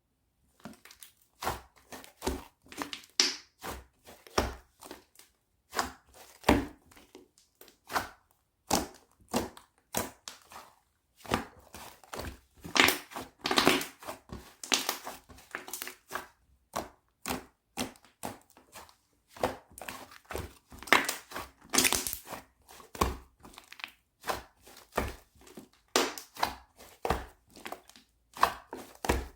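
Fluffy sky-blue clay slime squeezed and pressed by hand, giving a steady, irregular run of sticky pops and crackles as trapped air bubbles burst.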